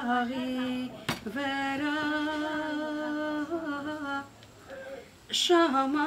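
A solo voice, unaccompanied, sings a traditional Armenian folk song in long held notes with a wavering vibrato. There is a sharp click about a second in, and a short pause about two-thirds of the way through before the singing picks up again.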